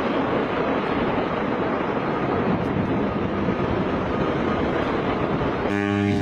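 Aircraft noise: a steady rushing roar with no clear pitch. Near the end it cuts abruptly to a steady, deep engine drone.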